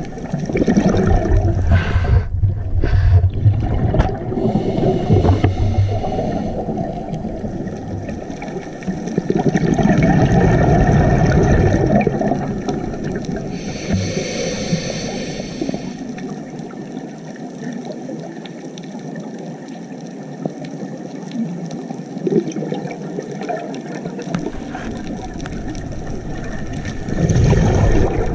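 Scuba diver breathing through a regulator, heard underwater: a hiss on each inhalation and rushes of exhaled bubbles, coming in uneven swells.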